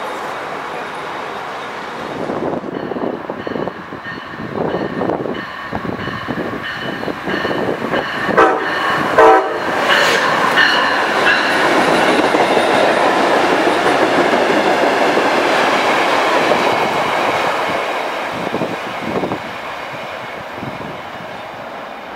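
A train's horn sounds in long blasts as the train approaches. The train then passes close at speed with a loud rush and rattle of wheels on rail, which fades away near the end.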